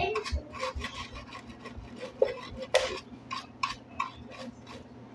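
A small brush scrubbing dirt off carpet cleaner parts in short, quick strokes, about three a second, with one louder stroke near the middle.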